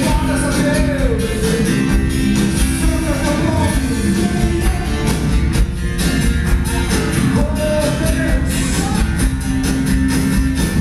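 Rock-style music with singing over a steady beat.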